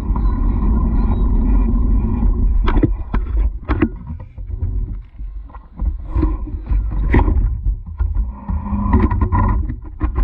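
Wind buffeting a GoPro's microphone as a bicycle rides along a dirt track, heavy for the first couple of seconds and then gusting on and off, with scattered knocks and rattles of the bike over bumps.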